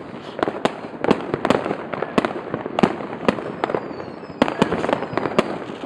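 Many fireworks going off at once: sharp, irregular bangs of rockets and firecrackers, several a second, over a continuous din of more distant fireworks, with a faint falling whistle about four seconds in.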